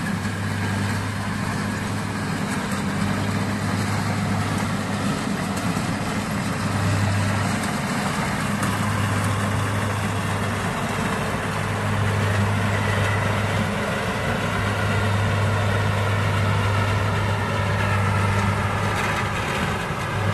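Rice combine harvester running steadily: a diesel engine's constant low hum under a broad, even mechanical noise.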